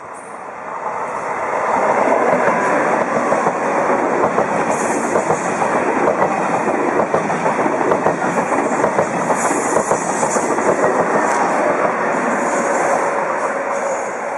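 TGV high-speed electric train rushing past at trackside: a loud rush of wheel-on-rail and air noise that swells over the first two seconds, holds with a fast rattle of wheels over the rails, and eases near the end.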